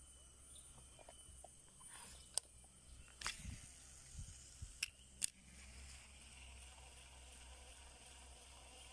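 A few sharp clicks and duller knocks of handling noise between about two and five seconds in, over a faint steady outdoor background.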